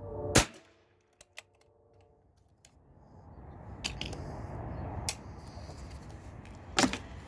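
Pre-charged air rifle shot, a sharp crack about half a second in, followed by a few light mechanical clicks. A second sharp report comes near the end.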